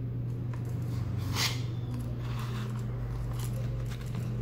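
Hands handling a tooled leather knife sheath with the knife in it: soft rustles and small clicks, with one short scrape about a second and a half in. A steady low hum runs underneath.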